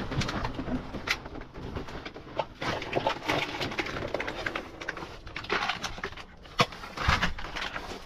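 Plastic bags, wrap and cardboard rustling and crinkling underfoot and by hand in a metal dumpster, with scattered irregular knocks.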